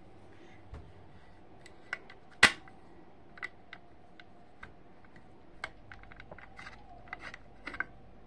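Scattered light metallic clicks and taps from handling the bolt action of a Husqvarna Model 255 single-shot .22 rifle, with one sharp loud click about two and a half seconds in and a quick run of small clicks near the end.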